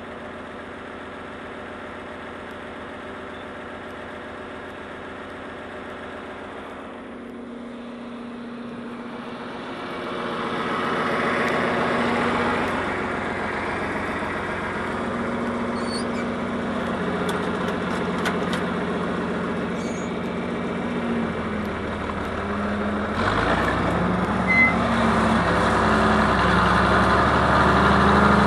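Tractor engine running steadily, its pitch shifting and growing louder about ten seconds in and again near the end.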